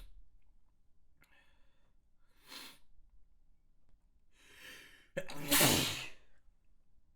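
A person sneezing: a few sharp, breathy inhales build up, then one loud sneeze with voice about five seconds in.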